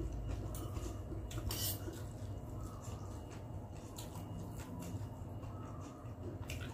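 Metal fork clinking and scraping against a clear glass bowl as noodles are stirred and twirled, with several sharp clinks spread through, over a low steady hum.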